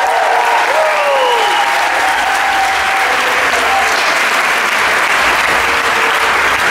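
Large audience applauding steadily, with a few voices calling out over the clapping in the first second or two.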